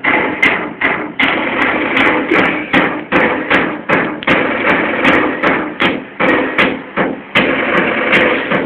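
A musical instrument played in rhythmic, sharply attacked pulses, about two or three a second, each with a pitched ring that dies away quickly.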